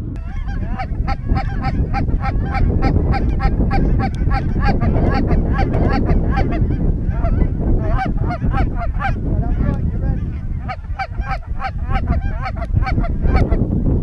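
Canada goose honking and clucking in a fast, continuous run of short calls, about four a second, thinning out around ten seconds in and picking up again near the end. Wind rumble on the microphone runs underneath.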